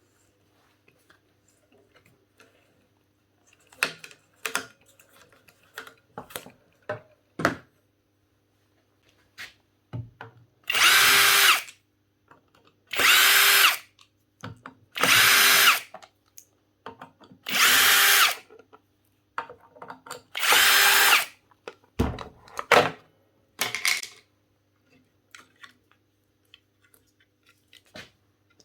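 A small power-tool motor run in five short bursts of about a second each, with clicks and handling knocks in between.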